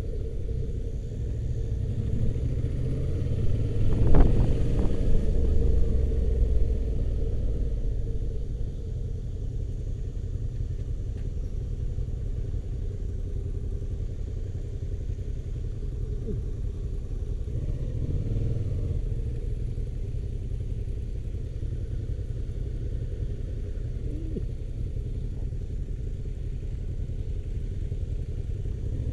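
Motorcycle engine running on the move, a steady low rumble that swells for a few seconds near the start, with a single knock about four seconds in.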